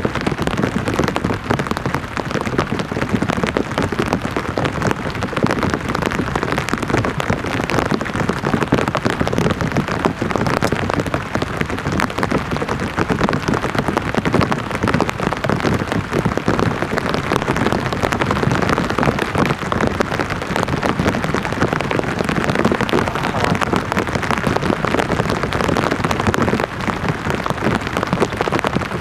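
Heavy rain falling steadily, countless drops striking a tarp shelter in an even, unbroken rush.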